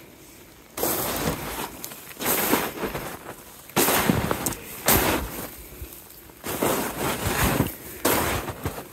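Slow footsteps crunching through snow, about one step every second and a half.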